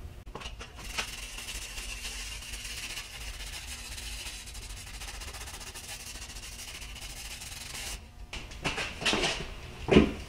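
A steady hiss of spray for about seven seconds, consistent with an aerosol cleaner used on the milling machine's table and ways, cutting off suddenly. It is followed by a few light knocks of metal parts being handled.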